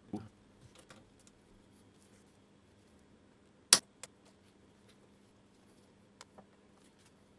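Quiet handling of tools and parts, with one sharp click a little over halfway through, a lighter click just after it, and a few faint ticks.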